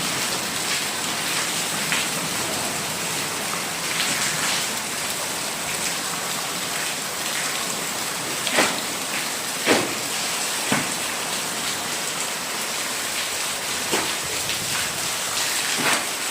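Steady rain falling with an even hiss, with a handful of louder single drops striking a surface about halfway through and near the end.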